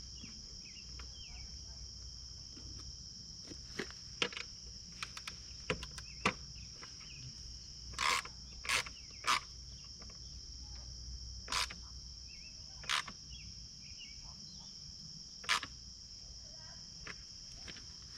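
Steady chorus of insects, typical of crickets, with scattered light clicks and knocks. The loudest clicks come in a cluster about eight to nine seconds in, then singly a few seconds apart.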